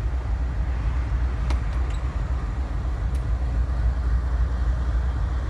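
CSX diesel-electric locomotive engine idling with a steady low rumble, with a few faint clicks.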